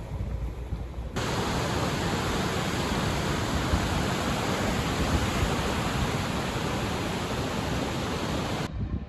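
A steady, even rushing noise that starts suddenly about a second in and cuts off suddenly near the end.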